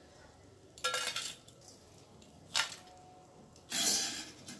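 A perforated steel ladle clinks and scrapes against a steel kadhai and a steel plate. There are three short clattery strikes, and the longest comes near the end as the fried gum is tipped onto the plate.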